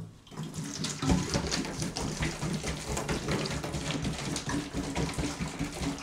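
A gallon of vinegar pouring from a plastic jug into an empty 5-gallon plastic water jug, gurgling and glugging unevenly as air bubbles back up through the neck. It starts about half a second in and grows stronger about a second in.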